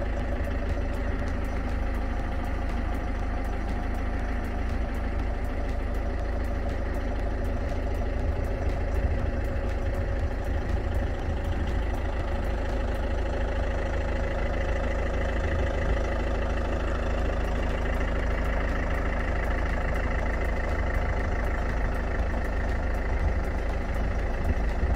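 Vehicle engine idling steadily, with a constant low rumble.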